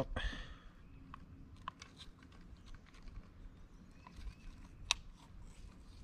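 Faint, scattered clicks and taps of a smallmouth bass being hung on and handled with a handheld digital fish scale, with one sharper click about five seconds in.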